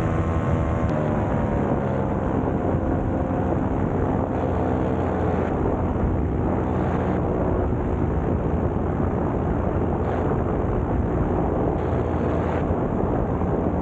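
Paramotor engine and propeller running steadily close to the microphone, its pitch falling a little about a second in and then holding.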